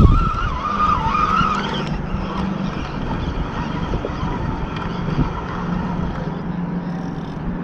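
Steady motor-vehicle engine hum over wind noise, with a wavering high squeal in the first two seconds.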